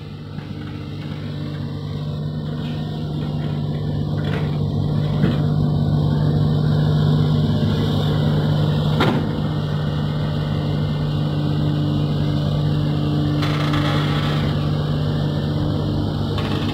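Diesel engine of a Komatsu hydraulic excavator running steadily under load while it digs and swings. It grows louder over the first several seconds, with a single sharp knock about nine seconds in and a brief hiss about thirteen and a half seconds in.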